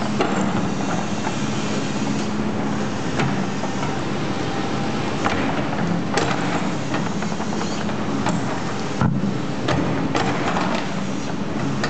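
Doosan crawler excavator's diesel engine running steadily as its bucket scrapes and scoops soil, with gritty crunching and a few sharp knocks scattered through.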